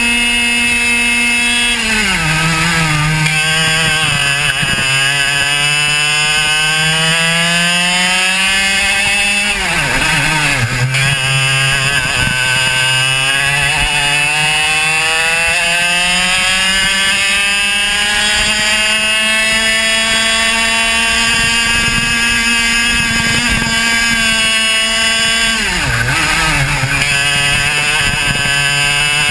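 Racing kart engine at full throttle, heard close from on board the kart. Its pitch drops sharply three times, about two seconds in, about ten seconds in and near the end, as the kart slows for corners, and climbs steadily back up each time as it accelerates out.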